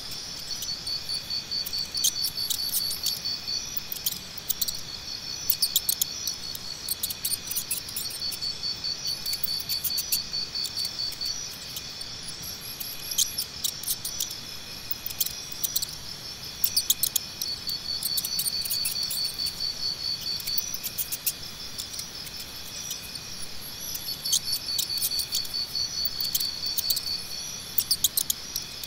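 Crickets chirping in pulsed trills of one to three seconds that keep repeating over a steady high insect drone, with scattered short, sharp high chirps.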